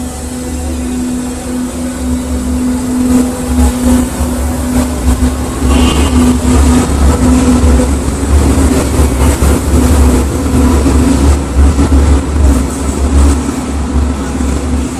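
Berlin U-Bahn train running through the station: a heavy low rumble with a whine that rises in pitch as it picks up speed, growing louder, and a brief high wheel squeal about six seconds in.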